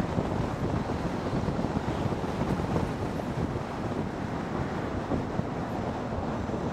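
Steady wind buffeting on a helmet-mounted camera's built-in microphone while riding a 2016 Zero DSR electric motorcycle at road speed, a rushing, fluttering noise heavy in the low end.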